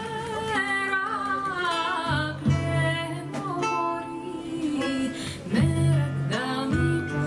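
A live folk band playing a Macedonian folk song: a woman sings a wavering melody over strummed acoustic guitar, with a hand-played drum and sustained low notes underneath.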